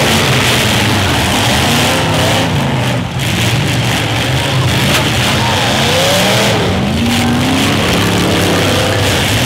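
Several demolition-derby cars' engines running and revving hard, pitch rising and falling again and again as the cars drive into one another on a dirt track.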